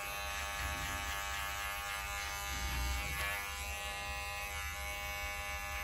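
Electric hair clipper buzzing steadily as it cuts hair over a comb behind the ear and along the nape.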